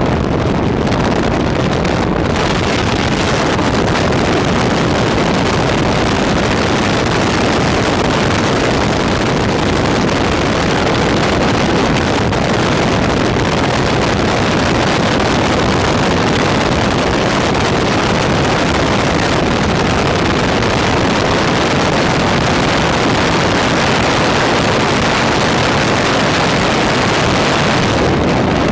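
Helicopter engine and rotor noise heard from inside the cabin: a loud, steady rush with no change in pitch.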